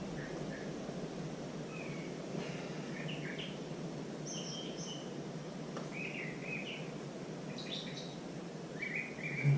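Small birds chirping in short high notes every second or so, over a steady background hiss.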